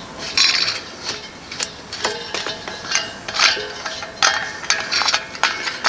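Brass gas adapter being screwed by hand onto a gas cylinder's valve: a series of short metallic scrapes and clicks from the threaded fitting, a few with a brief ring.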